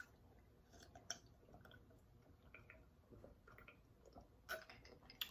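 Faint swallowing and gulping as a person drinks from a glass mug, with a few soft mouth clicks spread across an otherwise near-silent stretch.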